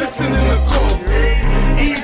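Hip hop backing music with deep bass notes and quick hi-hat ticks.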